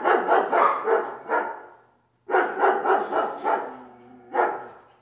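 Dog barking in two quick runs of sharp barks, then one more single bark near the end.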